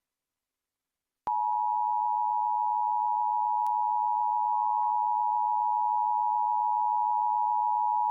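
Emergency Alert System attention signal: a steady two-tone alarm of 853 and 960 Hz sounded together. It starts about a second in and holds without change, marking the start of the EAS test before the spoken message.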